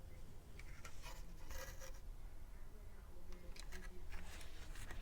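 Light irregular clicks and scrapes of hand work on a circuit board at a bench, over a steady low hum.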